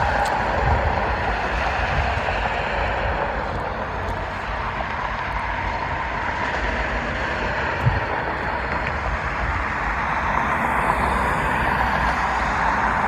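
Steady rumbling engine noise from jet aircraft and road traffic, easing off a few seconds in and building again near the end, with one short knock partway through.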